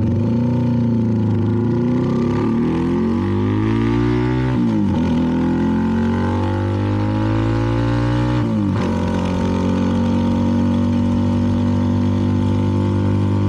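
CFMoto 300NK single-cylinder motorcycle engine with an aftermarket KO exhaust, pulling away and accelerating. The pitch rises, drops sharply with an upshift about four and a half seconds in, rises again, drops with a second upshift near nine seconds, then holds steady at cruising speed.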